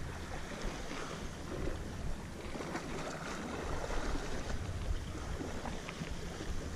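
Wind buffeting the microphone over small sea waves washing against a rocky shoreline: a steady rushing noise with a low rumble and a few faint clicks.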